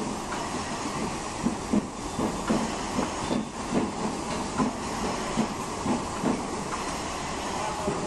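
Rotary milking parlour running: a steady hiss and rumble from the milking machinery and turning platform, with irregular short clicks and clanks about one or two a second.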